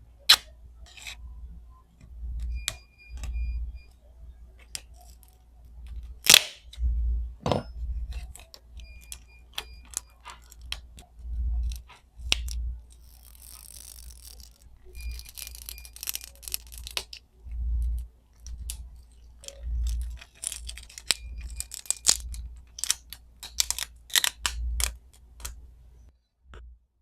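Tools clicking and tapping against an iPhone 8 Plus while its battery, punctured and slightly swollen, is worked loose. About 13 to 17 seconds in comes a stretch of crackling, tearing noise as the battery's adhesive pulls away. Low bumps recur throughout.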